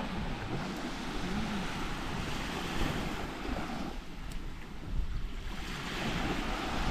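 Sea waves washing onto a beach, with wind buffeting the microphone in a low rumble.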